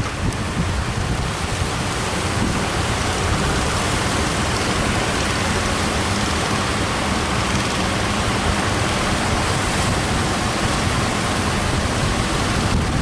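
Heavy surf breaking and washing ashore, with strong wind buffeting the microphone: a steady, loud rushing noise.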